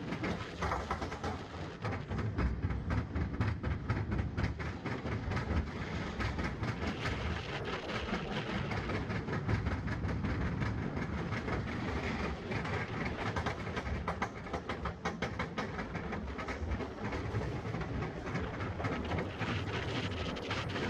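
Roller coaster car running along a steel track, its wheels rumbling and rattling with a rapid, continuous clatter.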